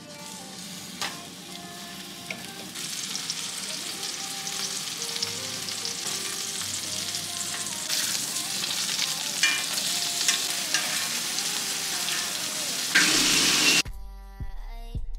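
T-bone steak sizzling as it sears in hot fat in a cast-iron skillet. The sizzle swells about three seconds in, grows louder again around eight seconds, and cuts off near the end.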